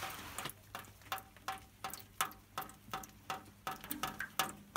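A regular ticking, about three ticks a second, each tick a sharp click with a short ringing tone.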